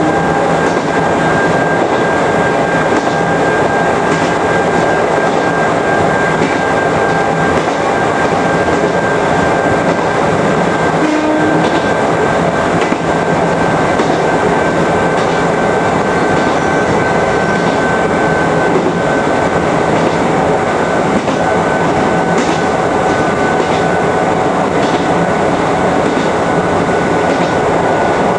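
Chichibu Railway 5000 series electric train running at steady speed, heard from the driver's cab: steady running noise of wheels on rails with faint clicks and a steady high tone.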